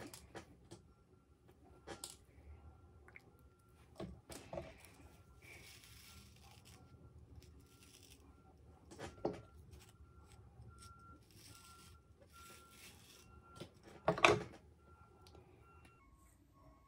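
Small brush scratching through the hair in short strokes, with scattered rustles of hands on hair and clothing and one loud rustling knock near the end.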